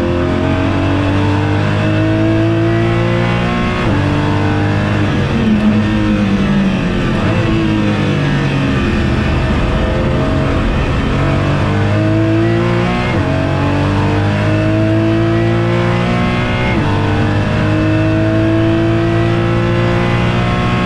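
Porsche Cayman GT4's flat-six engine heard from inside the cockpit, pulling hard through the gears. The pitch climbs steadily and drops sharply at each upshift, about three times. Near the middle it falls away through downshifts under braking.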